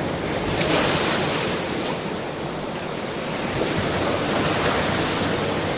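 Ocean surf: a continuous hiss of waves breaking and washing in. One surge swells about half a second in and ebbs through the middle, then another builds in the second half.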